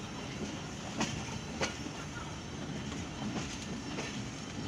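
Passenger coach of a moving train running on the track, a steady rumble with the wheels clacking over rail joints now and then.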